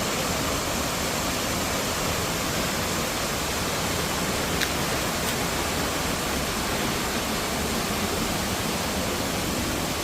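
Steady rushing of a waterfall, with one faint click about halfway through.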